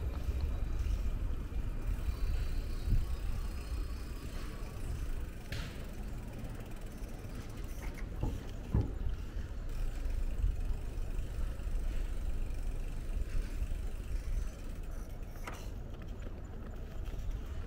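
Bicycle riding noise: a steady low rumble of wind on the microphone and tyres rolling on asphalt, with a few sharp clicks and rattles.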